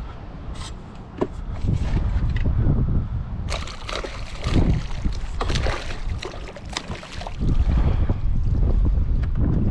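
Water sloshing and splashing in irregular bursts, busiest in the middle, over a constant rumble of wind buffeting the microphone.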